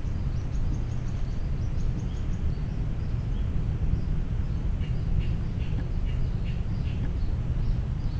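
Low, steady rumble of wind on the microphone, with birds chirping in short repeated calls over it; a lower run of chirps comes in about five seconds in.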